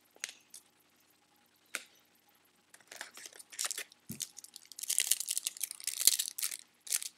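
Foil trading-card pack wrapper crinkling and tearing as it is handled and opened, starting about three seconds in and growing louder near the end. A couple of light clicks come before it.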